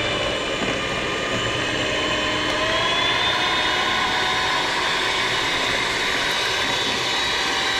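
Handheld electric hand mixer running steadily, its beaters whisking eggs in a stainless steel bowl; the motor whine rises a little in pitch about three seconds in.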